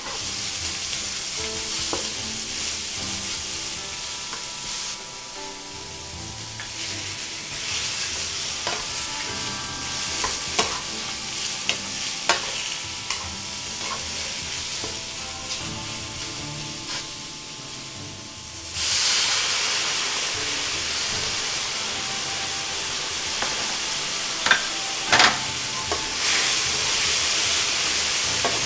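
Aubergine and shrimp sizzling in a nonstick wok as they are stirred with a wooden spatula, with scattered sharp clicks of the spatula against the pan. About two-thirds of the way through the sizzle turns louder and hissier.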